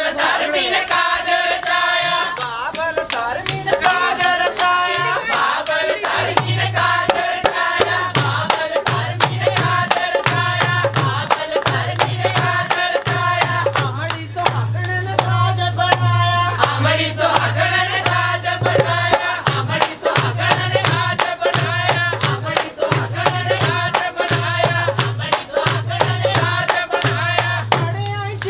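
Punjabi wedding folk song (a mehndi song) with voices singing over a hand-drum beat, claps and a pulsing low bass beat.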